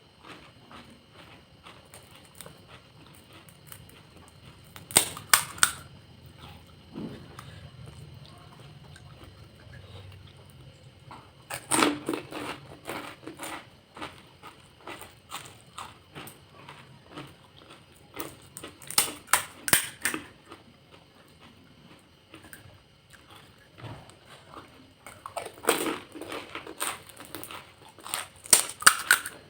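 Crisp fuchka (panipuri) shells cracking and crunching in quick clusters of sharp snaps, four times, with quieter chewing between.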